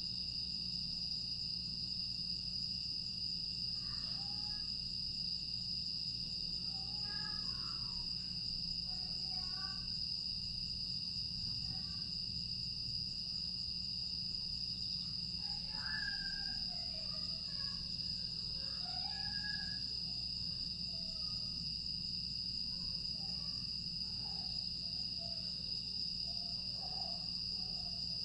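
Night chorus of crickets and other grass insects: a steady, unbroken high-pitched trill. From about four seconds in, faint short calls are scattered over it.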